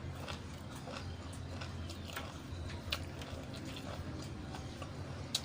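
Close-miked chewing of raw yardlong beans (sitaw): scattered crisp crunches and mouth clicks, the sharpest one near the end.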